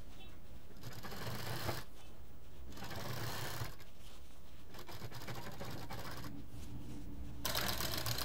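Black domestic sewing machine stitching in several short runs of about a second each with brief pauses between them, topstitching along folded piping on a quilted fabric panel.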